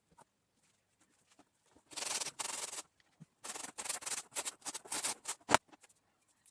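Rubbing strokes on a surface: one longer stroke about two seconds in, then a quick run of short strokes, ending in a sharp knock, the loudest sound.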